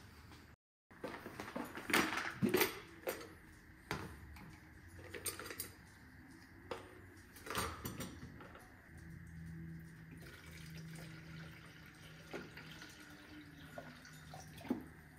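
Clunks and taps of a plastic funnel and coolant jug being handled at a radiator filler neck, then antifreeze pouring from the jug through the funnel into the radiator from about nine seconds in.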